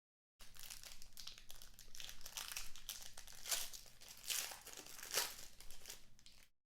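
Crinkling plastic as trading cards in plastic sleeves are handled, an irregular crackle with a few louder crackles in the second half.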